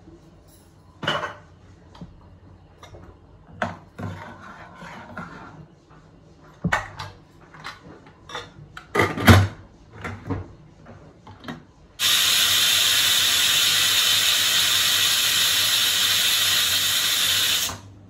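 Pressure cooker lid clicking and clattering as it is fitted onto the pot and its locking knob is turned. About twelve seconds in, a steady loud hiss of steam venting from the pressure cooker starts and runs for about six seconds before it cuts off suddenly.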